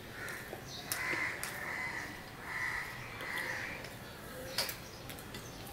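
A bird calling repeatedly outside, about five evenly spaced calls. One sharp click comes about four and a half seconds in.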